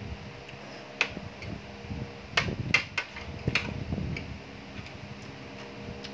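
Close-up eating sounds: noodles slurped and chewed, with a string of sharp smacks and clicks of mouth and spoon and fork against the plate, loudest in the middle, over a steady low hum.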